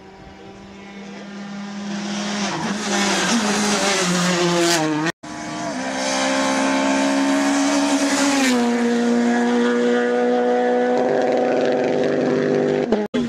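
Rally car engines running hard. A car approaches, getting louder over the first few seconds, with its engine note rising and falling through gear changes. After an abrupt cut about five seconds in, an engine holds a steady high note, drops in pitch a few seconds later, then holds steady again.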